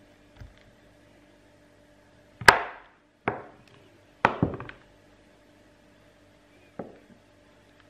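Handmade soap being cut and broken apart, giving a few sharp, crunchy cracks. The loudest comes about two and a half seconds in, two more follow within two seconds, and a smaller one comes near the end.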